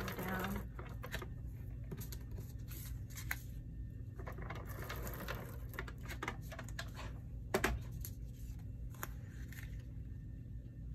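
Scotch Advanced Tape Glider (ATG tape gun) drawn in several strokes across cardstock, a rasping zip each time as double-sided adhesive is laid down, with scattered clicks and one sharp click about two-thirds through. Paper rustles near the end as the photo mat is pressed onto the page.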